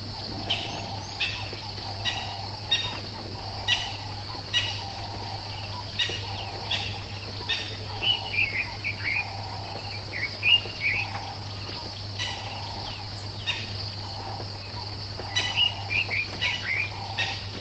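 Bush ambience: insects trilling steadily, with a bird giving short sharp calls about once a second and a run of warbling bird song around the middle, over a low steady hum.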